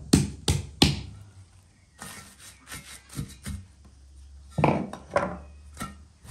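Three sharp knocks from dough being pressed and slapped into an enamel bowl in the first second. Lighter crackling and handling noises follow as the bowl is covered with cling film and a cloth towel, with a few more soft knocks near the end.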